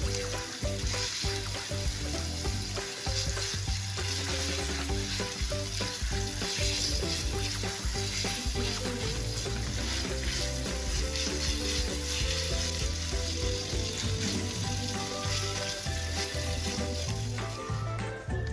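Minced meat sizzling as it fries in a nonstick pan while being stirred with a spatula, over light background music. The sizzle cuts off suddenly near the end.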